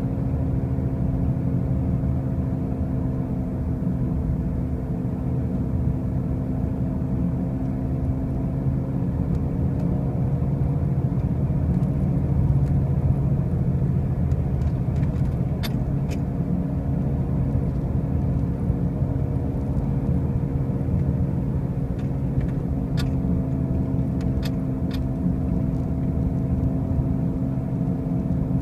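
2005 Pontiac Grand Prix driving with a loud, steady road drone and hum that sags slightly in pitch midway and comes back up, following road speed. It is the noise the owner hears when driving, still present with brand-new wheel bearings and new tires, cause unknown. A few faint clicks sound in the second half.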